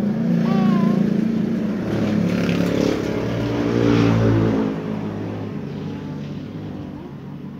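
A motor engine running, possibly a passing motorbike. It swells to its loudest about four seconds in, with a shift in pitch, then fades toward the end. A brief chirp is heard near the start.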